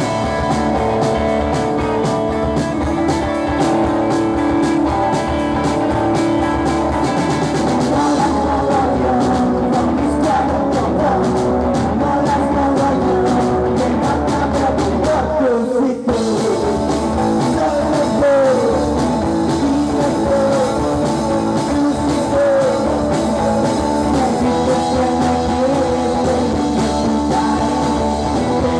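Rock band playing live: electric guitars and a drum kit with a man singing through the PA. The band stops for a split second about halfway through, then comes straight back in.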